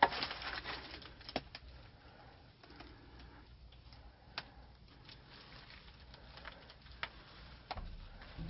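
A rustling crunch in the first second, then a few isolated sharp clicks and ticks spread through the rest, from someone moving about and handling things among crumbled debris.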